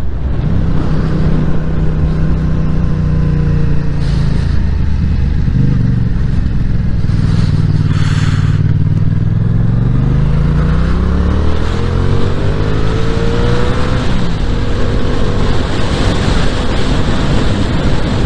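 Yamaha MT-07's parallel-twin engine running on the move with a steady rush of wind. The engine note sinks a little as the bike slows, then rises in a long climb about ten seconds in as it accelerates, and holds near the end.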